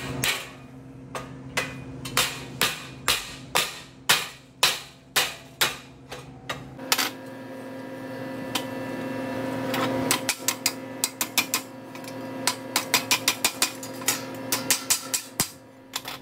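Hammer blows on a thin galvanized steel sheet laser-welded to stainless steel, testing whether the weld holds: about a dozen sharp metallic strikes at roughly two a second, a pause of a few seconds, then a quicker run of strikes.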